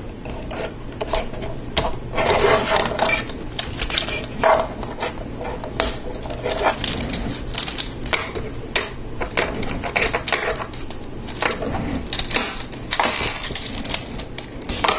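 Plastic Lego Technic parts clicking and rattling as they are handled, with an axle being slid through beams and pieces pushed together: irregular sharp clicks and light plastic rustling throughout.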